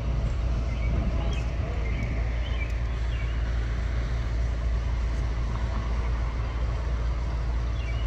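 Diesel locomotive of an approaching Long Island Rail Road train, a steady low rumble in the distance.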